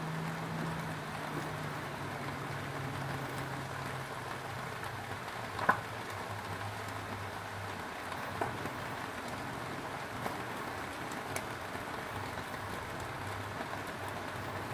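Foil-wrapped tilapia sizzling and crackling over a medium gas flame, a steady hiss with a few small pops and one sharper pop about six seconds in.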